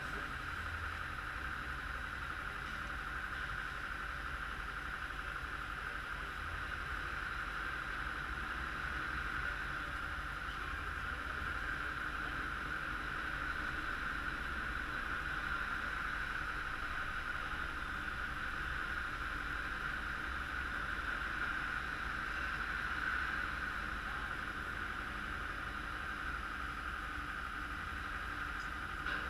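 Engine and hydraulics of a multi-axle heavy-haul modular transporter running steadily under load as it creeps along, a constant high whine over a low rumble.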